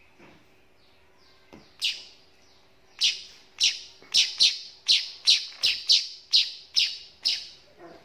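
Two-month-old weaver fledgling (burung manyar) calling. One loud, sharp falling chirp comes about two seconds in, then a fast run of about a dozen similar falling chirps, two to three a second, that stops shortly before the end.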